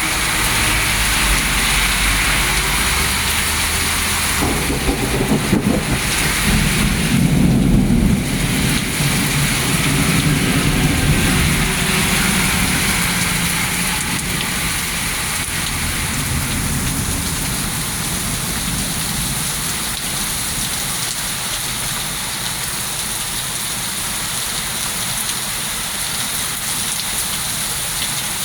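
Heavy thunderstorm rain pouring steadily, with a low roll of thunder rumbling from about five seconds in to about twelve seconds in, loudest around eight seconds.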